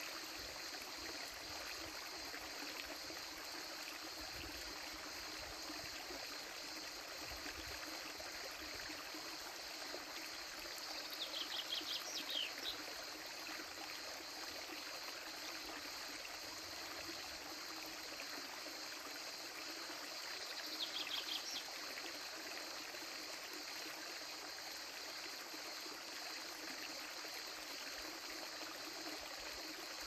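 Shallow stream trickling steadily over rocks, with crickets chirring in a steady high band behind it. Twice, about a third and two thirds of the way through, a bird gives a short run of quick descending notes.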